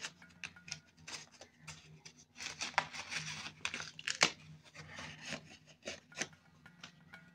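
Dry corn husks rustling and crackling as they are handled and stacked by hand: irregular crisp crackles, thickest in the middle, with one sharp louder crackle a little past halfway.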